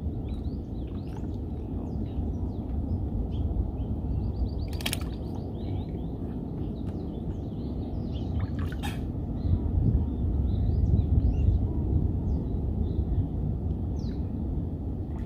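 Small birds chirping in short scattered calls over a steady low rumble, which swells for a couple of seconds near the end. Two brief sharp rattles cut through, about five and nine seconds in.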